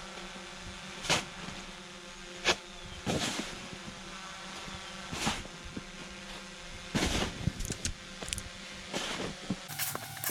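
Jeep Wrangler TJ plowing snow: its engine runs steadily with a whine, broken by irregular sharp knocks and clunks every second or two.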